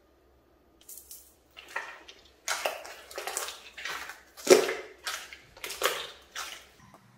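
Slime being stretched, pressed flat and squeezed in the hand, making a run of wet squelching and squishing sounds that start about a second in, the loudest about halfway through.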